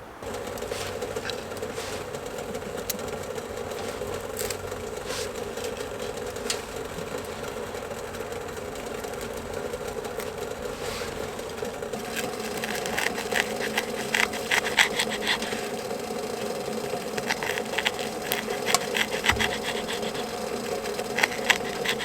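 Wood fire burning under a pot of water heating for tea, with a steady rushing and crackling. The crackles and pops come much thicker from about halfway through.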